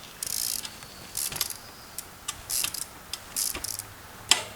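Trials bike being ridden: short bursts of high-pitched mechanical ratcheting, typical of the drivetrain's freewheel, with a few sharp clicks and one loud knock near the end.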